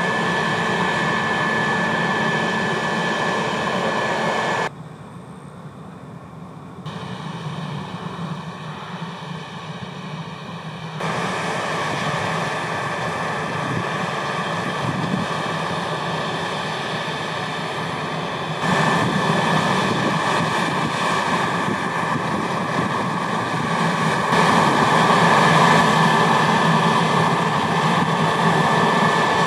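Harvest machinery running steadily in a wheat field: a combine harvester and a tractor hauling a grain trailer. The sound switches abruptly between shots, quieter for a few seconds about five seconds in, and a steady high whine sits over the machine noise at the start and again from about 19 seconds on.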